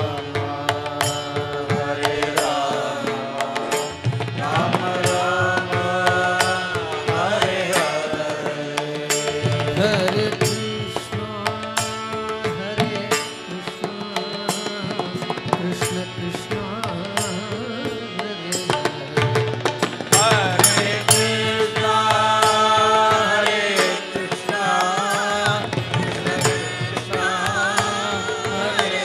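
Devotional Carnatic-style bhajan singing of divyanama sankeerthanam, accompanied by steady rhythmic percussion with sharp clicks.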